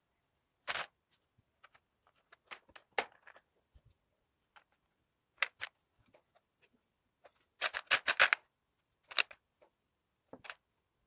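Plastic LEGO Technic pieces clicking and rattling as they are handled, picked from a parts tray and snapped together: scattered short clicks, with a quick run of rattling clicks about eight seconds in, the loudest part.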